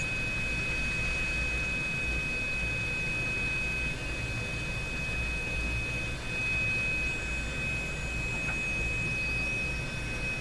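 Hammarlund HQ-100A communications receiver's speaker putting out a steady high heterodyne whistle over hiss and a low hum. The whistle is the beat between a 455 kHz test signal and the receiver's BFO, which was left switched on.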